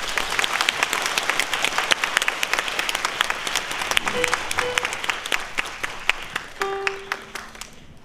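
Concert audience applauding at the end of a song, dense clapping that fades away near the end, with a few brief calls from the crowd partway through and one near the end.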